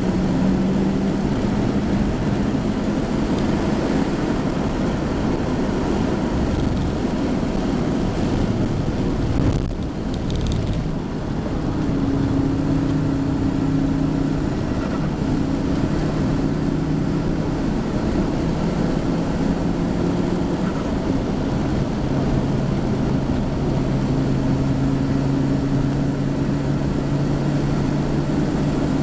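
Fiat Coupe 20V Turbo's inline five-cylinder turbocharged engine running hard under load, heard from inside the cabin, with a short dip in the engine sound about ten seconds in before it pulls steadily again.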